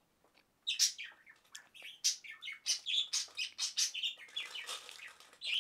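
A small bird chirping rapidly: a run of short, high chirps, several a second, starting about a second in.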